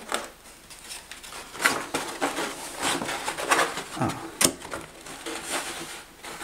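Handling noise from a Depron foam RC model airframe being gripped and turned over: irregular rubs and light knocks of hands on foam, with a short falling squeak about four seconds in.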